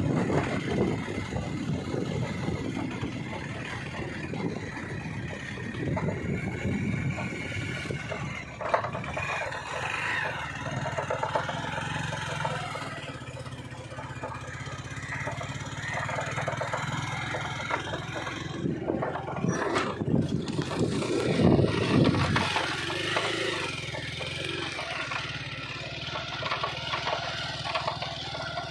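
A motor vehicle's engine running steadily, with mixed outdoor noise over it.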